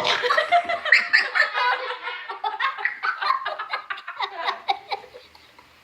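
Laughter in quick, choppy bursts of giggling and snickering, reacting to a loud burp, fading toward the end.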